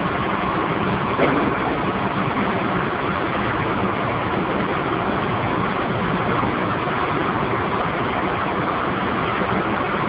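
Steady roar of a running steam boiler plant, with one short knock about a second in.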